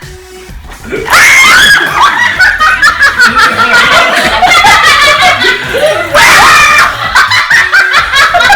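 Several people laughing loudly together, breaking out about a second in.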